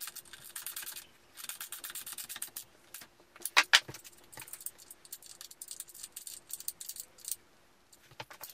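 Metal hand tools clicking and clinking at a dirt bike's rear axle: a wrench ratchets in rapid ticks for the first couple of seconds, one sharp metal clink comes about three and a half seconds in, then light scattered clicks as a spanner is fitted to the axle nut.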